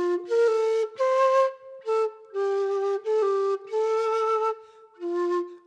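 Wooden quena in F, made of ash, played solo in an improvised melody: short phrases of held and stepping notes with a breathy edge, separated by brief pauses.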